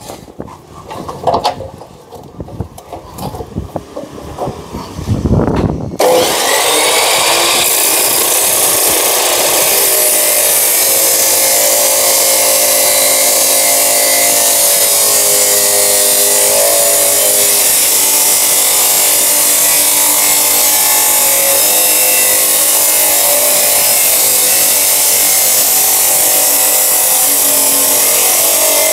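Knocks and rattles of steel being set in the vise. About six seconds in, a 2250 W Hukan abrasive cut-off saw starts and grinds steadily through steel box section.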